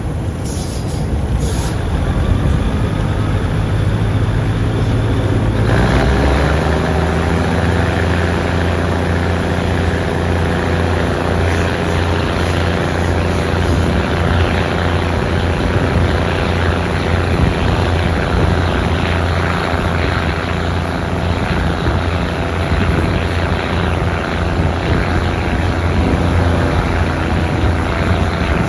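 Moving diesel train heard from an open carriage window: a steady engine drone over running and wind noise. About six seconds in, the engine revs up and then holds a higher, steady note.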